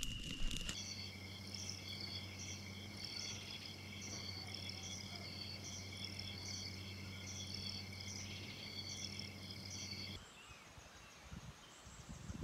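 Night insects in a forest, crickets trilling steadily with a repeated chirp about twice a second over a low steady hum, after a moment of campfire crackle. The chorus cuts off suddenly about ten seconds in, leaving faint bird calls.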